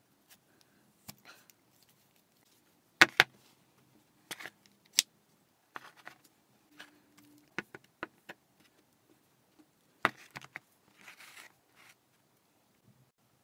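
Metal parts of a homemade gas torch clicking and tapping together as they are handled and fitted: scattered sharp clicks, the loudest pair about three seconds in and another about ten seconds in, with a brief rustle near the end.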